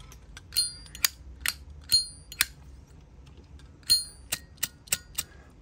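Zippo lighter lid flicked open with its ringing ping and snapped shut, over and over: about ten sharp clicks, three of them ringing, the last few coming quickly near the end.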